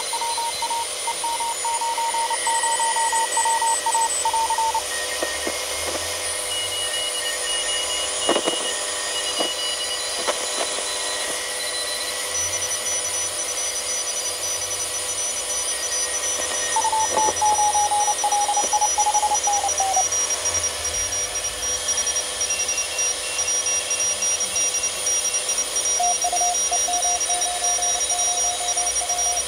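Pixie 2 QRP transceiver receiving Morse code (CW) on the 30 m band through a small speaker. Keyed beeping tones at a few different pitches sound over a steady hiss of band noise. A handful of sharp static clicks come about eight to ten seconds in.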